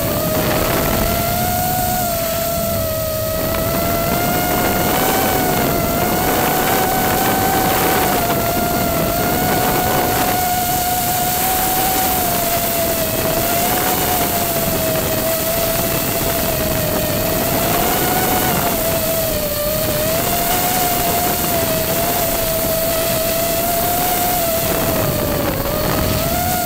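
FPV quadcopter's electric motors and propellers whining in flight, the pitch drifting gently up and down with throttle, over a steady rushing hiss.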